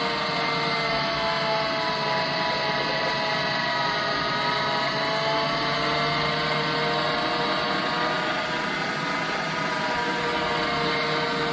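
Michelangelo electric meat grinder running steadily under load with an even motor hum and whine. It is grinding cooked split peas (dhal) through its fine plate.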